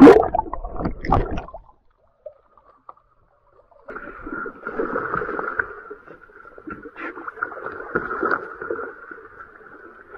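Muffled knocks and gurgling from an underwater camera for the first second or two, then after a short gap water splashing and sloshing against a boat's hull as a hooked hammerhead shark thrashes at the side, over a steady hum.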